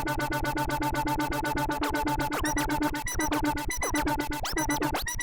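Behringer Neutron analog synthesizer playing a fast, even pulsing drone on steady pitches. From about two seconds in, swooping pitch sweeps cut in and repeat roughly every 0.7 seconds.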